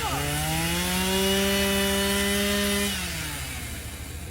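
Two-stroke chainsaw engine running at high revs. It bogs down briefly at the start, picks back up and holds steady, then the revs drop away and fade about three seconds in.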